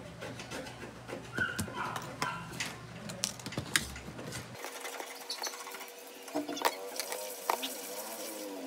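Sharp clicks and taps of smartphone parts and repair tools being handled on a work table. A wavering pitched sound comes in faintly in the background in the second half.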